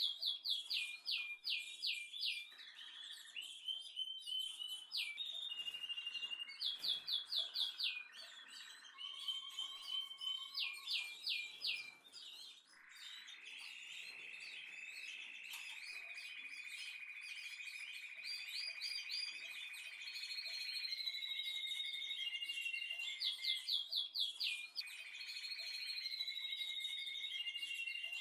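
High, bird-like chirping and whistling: quick runs of five or six falling chirps alternating with long held whistling tones. The regular, repeating pattern suggests an added background track rather than sound from the cooking.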